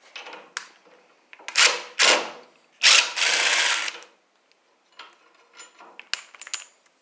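Impact driver running in short rattling bursts, three of them, the last about a second long, as bolts are loosened, followed by a few light metal clicks.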